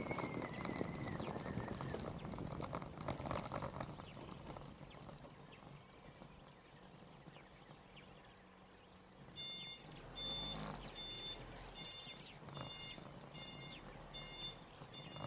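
Quick irregular knocking or clattering for the first few seconds, then quieter with scattered bird chirps. From about nine seconds in, a high beep repeats steadily about twice a second.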